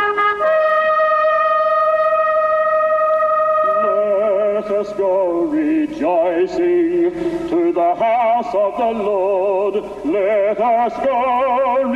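Choir singing: a long held note for about the first four seconds, then a moving melody sung with wide vibrato.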